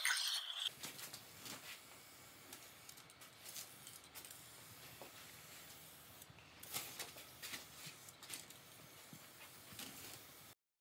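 800-grit sandpaper rubbed by hand over a painted alloy wheel rim, a rasping rub that stops under a second in; then only a faint steady hiss with a few soft ticks.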